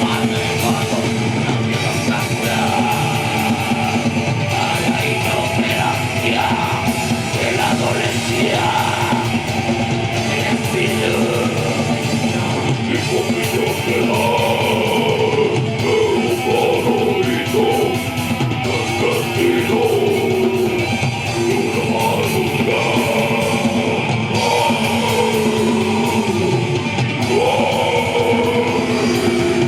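Rock band playing loud, distorted heavy rock with electric guitar and drums, dense and continuous, with wavering pitch-bending lines in the middle register through the second half.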